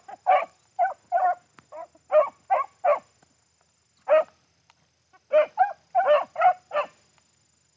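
Beagles giving tongue as they run a rabbit's scent: short barks, about three a second, in two runs with a lull of about two seconds between them.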